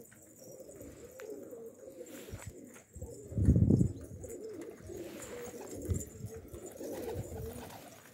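Domestic pigeons cooing continuously, with a louder low sound about three and a half seconds in.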